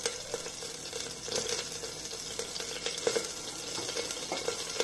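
Mustard seeds frying in hot oil in a stainless-steel pressure cooker: a steady sizzle with scattered small pops and crackles.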